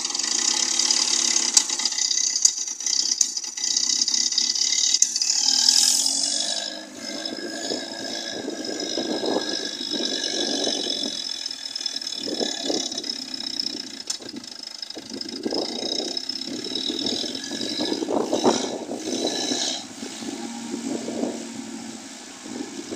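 The 1946 Conveyancer forklift's four-cylinder Standard petrol engine running roughly at its first start-up after a rebuild, steady for the first few seconds and then surging in uneven bursts. This is before the ignition timing has been advanced.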